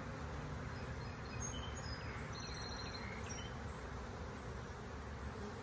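Honeybees buzzing in a steady drone around an opened hive, their frames out and covered in bees. A few faint high chirps come about two to three seconds in.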